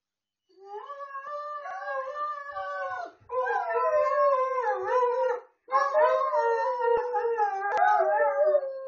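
Great Danes howling: long, wavering howls in three stretches with short breaks between, more than one voice at once.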